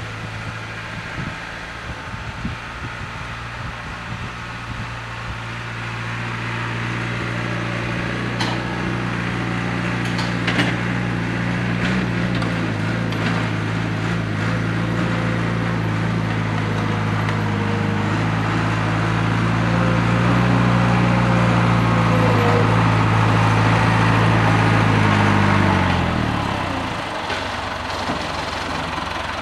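Caterpillar 416 backhoe loader's four-cylinder diesel engine running steadily, getting louder as the machine drives closer, with a few clanks. Near the end the engine speed falls away and the engine note fades out.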